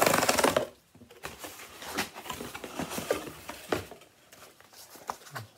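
Brown paper parcel being rustled and torn open, loudest in the first half second, then scattered light taps and scrapes as the small cardboard box inside is handled.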